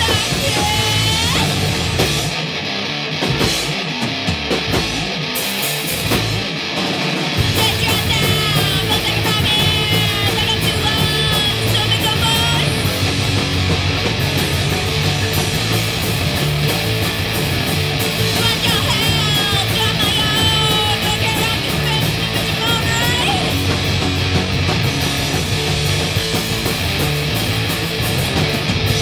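Hardcore punk song: drums, electric guitar and shouted vocals. A couple of seconds in the band plays choppy stop-start hits for a few seconds, then the full band comes back in at about seven seconds and keeps driving, with the shouted vocals coming and going.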